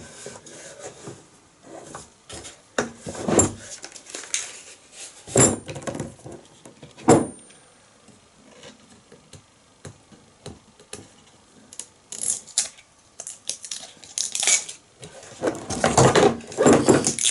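Router accessories and case parts being handled, made of hard plastic and metal: irregular clicks, knocks and light rattles, with a few sharper knocks in the first half and busier clatter near the end.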